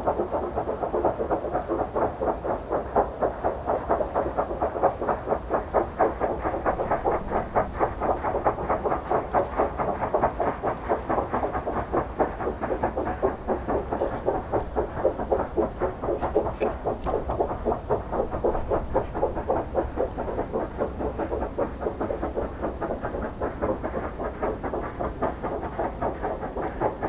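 China Railways JS class 2-8-2 steam locomotive working a train, its exhaust beating in a rapid, even rhythm.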